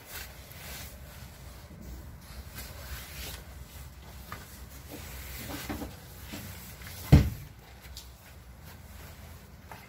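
Indistinct handling and movement noises over a low background, with one sharp, loud thump about seven seconds in.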